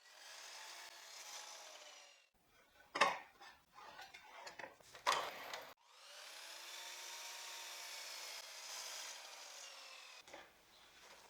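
Power saw cutting through cedar board twice, the first cut about two seconds long and the second about four and a half seconds, both faint. Two sharp wooden knocks fall between the cuts as the wood is handled.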